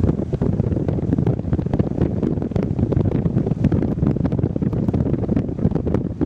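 Wind buffeting the microphone: a loud, continuous, gusting low rumble.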